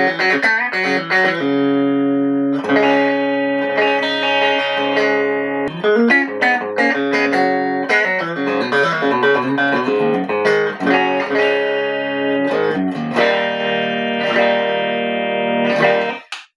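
WestCreek TT-20 Telecaster-style solid-body electric guitar played through a small amp in a fairly clean tone. It plays strummed chords and single-note phrases, and the playing stops abruptly just before the end.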